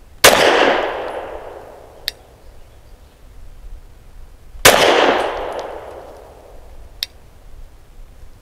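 Two 9mm pistol shots about four and a half seconds apart from a Lone Wolf Arms Dusk 19 firing PPU 158-grain subsonic rounds, each echoing away over a second or more. A short sharp tick comes about two seconds after each shot.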